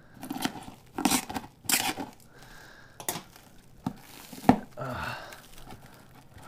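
Plastic wrapping crinkling and tearing as hands pull it off an engine block packed in a cardboard box, in several short irregular bursts, with one sharper crack about two-thirds of the way in.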